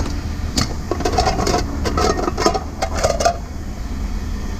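Pieces of scrap metal clanking and rattling for a couple of seconds, over a steady low engine rumble.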